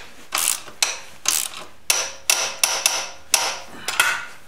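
Socket ratchet wrench clicking in short repeated strokes, about two a second, as it tightens the engine mounting bolt that holds the ground cable.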